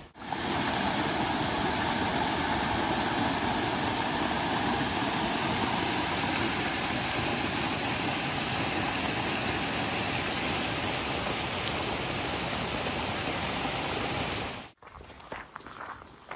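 Steady rush of a waterfall pouring down a rocky gorge, which cuts off abruptly near the end. It is followed by a few footsteps on a leaf-covered path.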